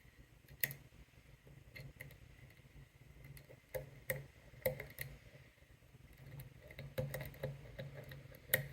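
Pick hook and tension wrench working the pin stack of a padlock's spool-pin lock: irregular small metallic clicks and ticks as the hook lifts and checks the pins, the core held in a false set.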